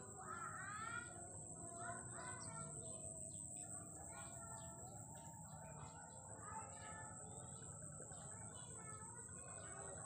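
Small birds chirping and twittering in many short, repeated calls, over a steady high-pitched whine.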